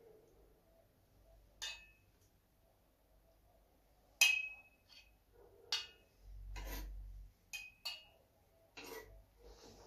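A metal spoon clinking and scraping against a stainless steel saucepan as sauce is spooned out: several sharp clinks spread through, the loudest about four seconds in, with a longer scrape around six to seven seconds.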